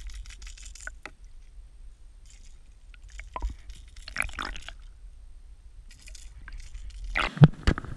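Water heard through a camera held underwater: a muffled low rumble with a few faint sloshes, then a couple of sharp, louder splashes near the end.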